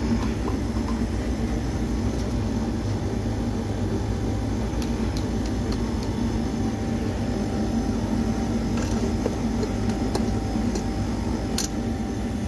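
Outdoor unit of a split air conditioner running: compressor and condenser fan giving a steady mechanical hum, with a few faint ticks. The unit has just been charged with refrigerant and is under load.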